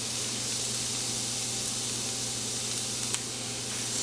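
Seasoned chicken sizzling on a preheated, oiled cast-iron grill pan: a steady hiss, with one short click about three seconds in.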